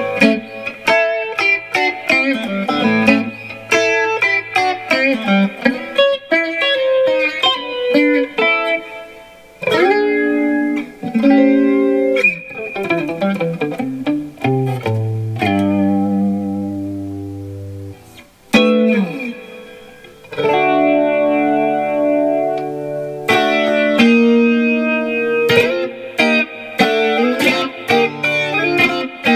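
Monoprice Indio Retro Classic Tele-style electric guitar played through an amplifier: a run of picked single notes and chords with string bends, and one chord held ringing for about two seconds halfway through.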